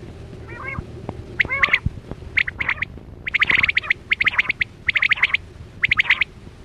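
Quail calling: bursts of quick, rapidly repeated notes, several phrases in a row, the densest burst about halfway through.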